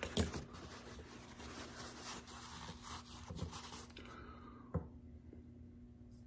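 Quiet rubbing and rustling of a cloth against the face as a man wipes his nose, with a few soft knocks of hand movement; it dies away after about four seconds, leaving room tone and one short knock near five seconds.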